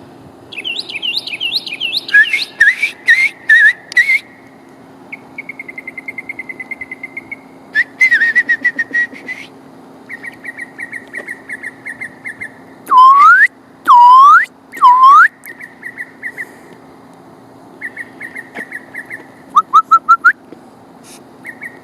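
Mockingbird singing at night, a varied string of repeated phrases: quick chirps, trilled runs, three loud up-slurred whistles about halfway through, and a fast burst of notes near the end. A faint steady hum lies underneath.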